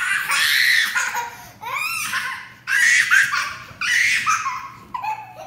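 A small boy laughing in repeated high-pitched bursts, squealing as he is tickled.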